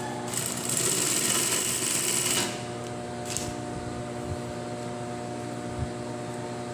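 Juki 5550 single-needle lockstitch industrial sewing machine stitching a test seam after repair in one run of about two seconds, with a shorter burst a second later, over the steady hum of its motor.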